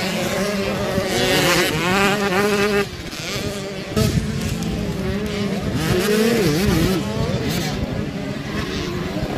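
Motocross dirt bike engines revving, their pitch rising and falling with the throttle through corners. There is an abrupt change in the engine sound about four seconds in.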